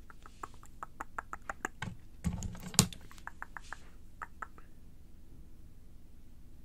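Close-miked ASMR mouth sounds: a quick run of small wet mouth clicks, with one louder knock about three seconds in, fading out after about four and a half seconds.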